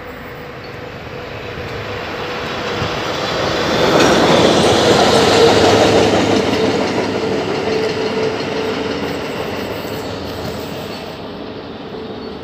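Diesel locomotive passing close by on the rails, its engine and wheels growing louder to a peak about five seconds in, then fading as it moves away.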